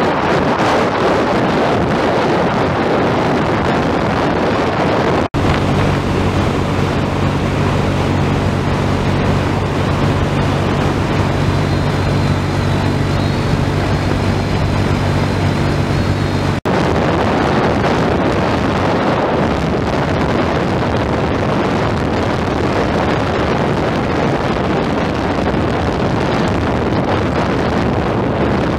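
Wind buffeting the microphone of a moving motorbike, with the engine running at a steady speed underneath; the steady engine hum stands out more plainly in the middle stretch. The sound breaks off for an instant twice, at about five and about seventeen seconds.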